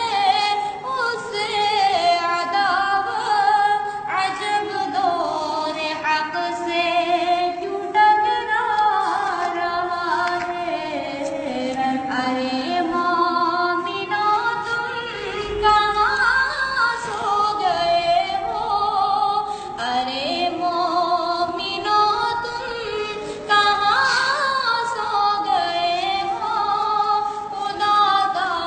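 A naat, an Islamic devotional song in praise of the Prophet, sung in a continuous vocal line whose held notes slide up and down in pitch.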